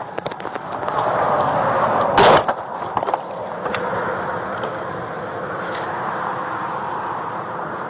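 A truck sideswipes a patrol car through its opening driver's door: the rush of the truck grows, then a single loud crash of the impact comes about two seconds in. A steady rushing noise carries on afterwards.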